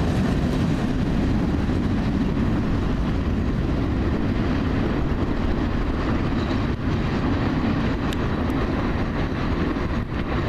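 Freight train's gondola cars rolling along the track as the end of the train moves away, a steady low rumble with a few faint clicks.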